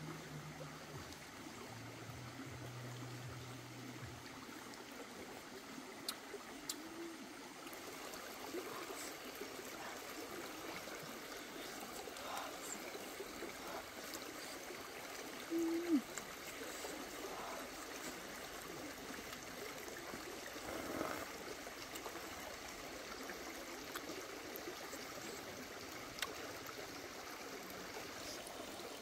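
Shallow rocky stream flowing with a steady rush of water, with a low hum in the first few seconds, a few faint clicks, and one short pitched sound about halfway through.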